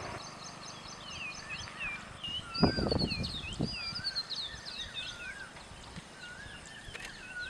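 Many small birds chirping and twittering together in short rising and falling whistles. A brief burst of low knocks or rustling comes about two and a half seconds in.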